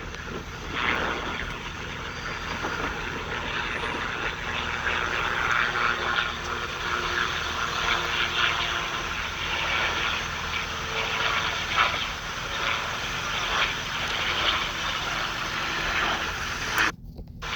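Helicopter hovering overhead, its rotor and engine making a steady noise that cuts off near the end.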